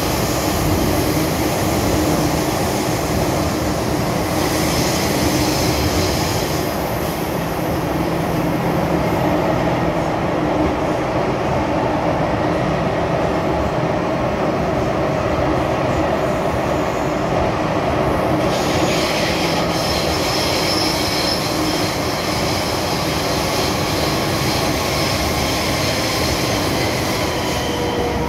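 MTR M-Train metro car running through a tunnel, heard from inside the car: a loud, steady rumble of wheels and running gear. A high-pitched wheel squeal rides over it for the first several seconds, drops away, and comes back about two-thirds of the way through.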